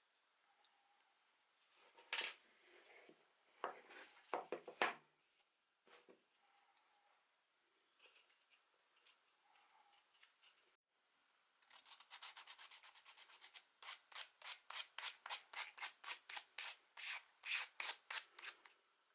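Small wooden lock parts being sanded by hand. A few scattered strokes come first, then after a brief break a quick run of short strokes, and then steady back-and-forth strokes at about three a second.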